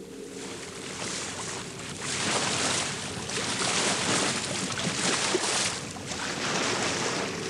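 Sea waves breaking, a rushing surf that swells about two seconds in, surges unevenly and eases toward the end.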